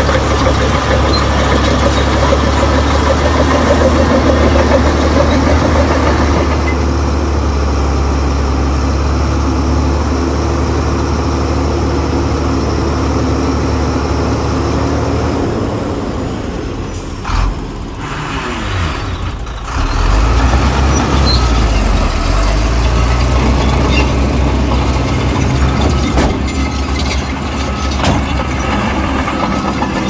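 Heavy diesel engines of earthmoving machines running under load, a steady low drone. About two-thirds of the way through the engine note falls away and dips briefly, then picks up and runs steadily again.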